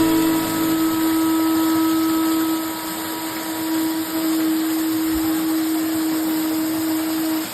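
Background music ending on one long held note, whose upper tones fade while the low tone holds until it cuts off near the end, over a steady haze of noise.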